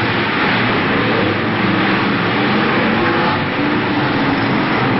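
A pack of BriSCA F1 stock cars racing together round a bend, many engines running hard at once in a loud, dense drone, with engine notes wavering up and down as the cars pass.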